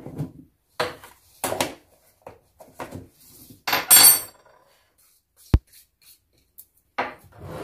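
Spoon knocking and clinking against a bowl and ingredient containers while batter ingredients are measured in: a run of separate taps, with one louder, ringing clink about four seconds in.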